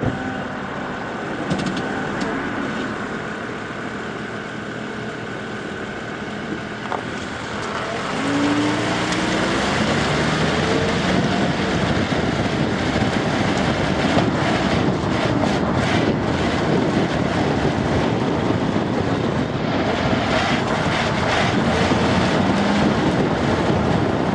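A 1999 Acura RL driving on a neighborhood street, its road and engine noise rising about eight seconds in as it picks up speed. Two clusters of knocks come as it goes over speed bumps on a seized front passenger-side strut that no longer rebounds, giving a harsh, truck-like ride.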